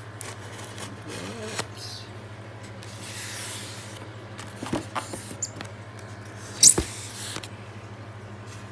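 Packaging being handled as a box is opened: rustling and scraping, a few sharp clicks, and one loud knock or clatter about seven seconds in. A steady low hum runs underneath.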